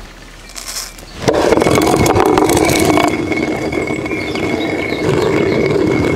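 Hand-turned stone mill grinding dried corn kernels: a steady, gritty rumble of the upper millstone turning on the lower one, starting about a second in.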